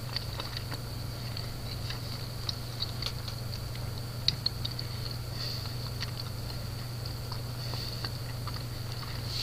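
Steady low hum with a thin high whine above it, dotted with faint scattered clicks and ticks; the loudest pair of clicks comes about four seconds in.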